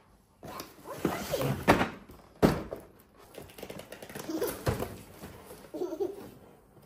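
Boxed toys being shifted and pulled out of a large cardboard shipping box: cardboard rustling and a series of hollow cardboard thunks, the loudest about two seconds in.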